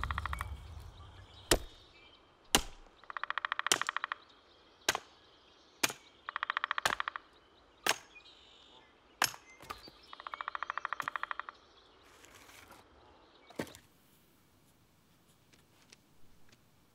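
A hatchet chopping into a wooden chopping block, about eight sharp strikes a second or two apart, with three stretches of rapid, even buzzing pulses about a second long between them. Near the end it goes quiet, with a few faint pencil scratches on paper.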